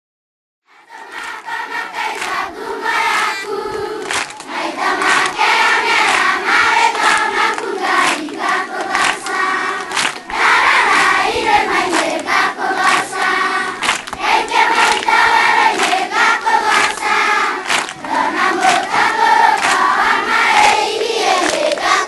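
A large group of children singing together in chorus, with hand clapping to the beat; it starts about a second in.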